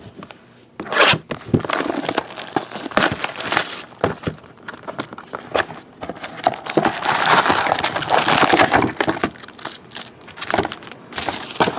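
Plastic and foil packaging crinkling and crackling as a sealed trading-card box is unwrapped and opened and its stack of foil-wrapped card packs is lifted out: a run of sharp rustles, with a longer, louder stretch of crackling past the middle.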